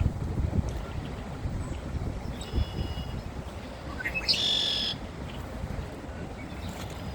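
A songbird calling twice: a faint call about two and a half seconds in, then a louder, clear call lasting nearly a second, beginning with a short upward slide. Both calls sit over a steady low rumble.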